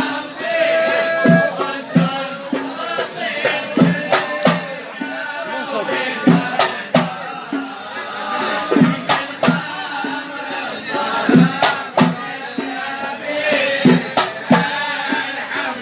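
Traditional 'awani' chanted singing by men, with sharp hand-drum strikes beating through it.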